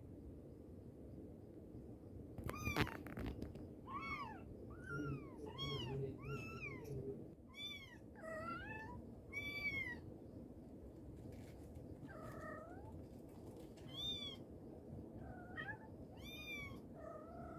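Mother cat and her kittens meowing over and over: many short, high-pitched mews that rise and fall, with a few lower calls mixed in. A sharp rustle or knock about three seconds in.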